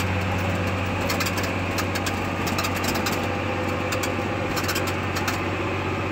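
John Deere 8300T track tractor's diesel engine running steadily while the tractor drives in gear, heard from inside the cab as a low, even drone. Scattered light clicks come and go over it at irregular moments.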